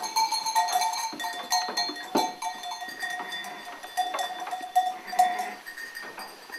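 Charollais ram walking on a tiled floor: hooves clicking and knocking irregularly, with a sharper knock about two seconds in, over steady high ringing tones.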